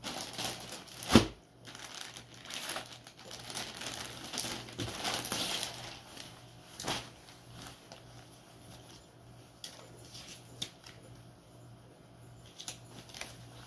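Clear plastic polybag crinkling and rustling as a folded jacket is pulled out of it, with one sharp knock about a second in. After about six seconds it turns quieter: light rustling and a few scattered clicks.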